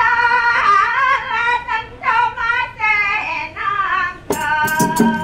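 High-pitched voice singing a wavering, ornamented melody in short phrases. A little over four seconds in, sharp percussive clashes and a steady ringing tone come in as the instrumental accompaniment starts.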